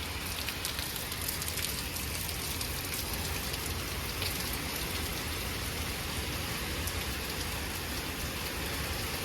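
Heavy thunderstorm rain pouring down steadily, with scattered sharp drop taps.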